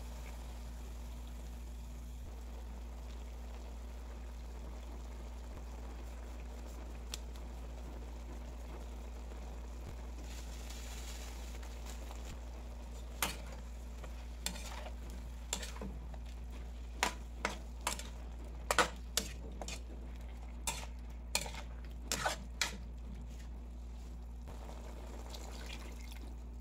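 Pork cubes sizzling steadily in a wok. From about halfway through, a metal spatula stirs them, scraping and clacking against the pan in a series of sharp knocks.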